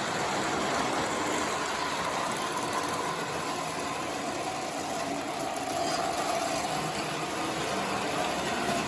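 Lionel electric model train running on its track: a steady motor whine with the rumble of wheels on rails.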